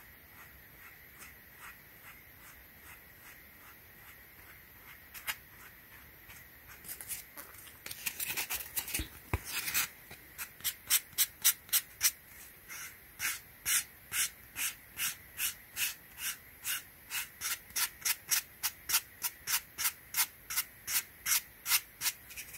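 Sandpaper rubbed back and forth over the scuffed foam of a Yeezy Foam Runner to smooth out scratches. The strokes are faint and slow at first, then become louder and regular from about halfway, at about three strokes a second.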